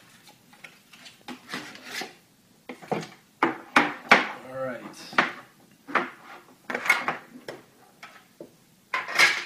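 A boxed trading-card package being handled and opened on a wooden table: irregular rubbing, sliding and knocking of the box and its packaging as the inner box comes out of its outer carton and is set down.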